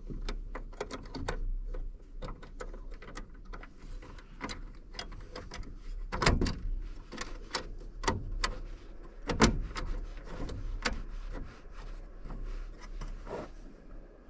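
Irregular clicks, taps and knocks of hands handling and fitting a vehicle headlight lens and its metal rim, with louder knocks about six, eight and nine and a half seconds in, over a low steady hum.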